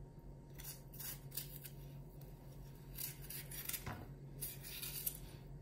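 Kitchen knife cutting a green bell pepper: a series of short, crisp cuts at uneven intervals, with a faint steady low hum behind.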